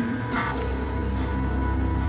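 Background music of low sustained tones, with a short brighter accent about half a second in.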